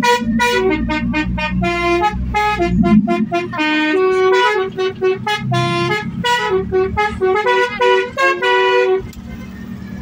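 Bus telolet horn, a multi-tone musical air horn, playing a quick tune of short pitched notes that stops about nine seconds in, over the low running of the bus.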